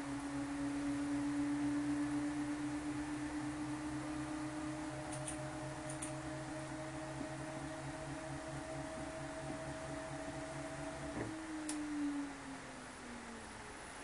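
Brastemp Vantage top-load washing machine's motor running mid-wash: a steady whine that creeps slightly up in pitch, cuts off suddenly about eleven seconds in, then falls away in pitch as it winds down. There are a few faint ticks along the way.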